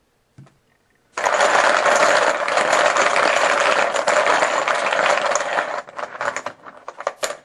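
Poker chips clattering together as they are shaken and mixed, a dense run of clicks for about five seconds, then a few separate clicks as one chip is picked out.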